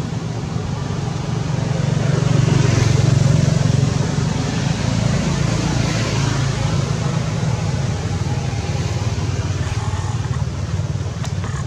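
Steady low engine rumble, swelling about two to four seconds in.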